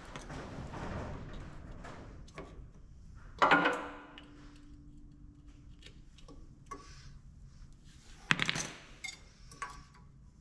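Metal clanks from hand tools and metal parts being handled: a sharp metallic hit about three seconds in that rings on for a few seconds, then a second clank near the end, with light ticks and rattles between.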